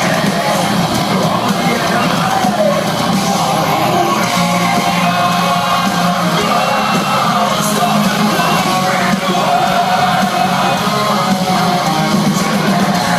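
Live heavy metal band playing loud and steady, with distorted guitars, drums and a vocalist singing and shouting, as recorded from the crowd.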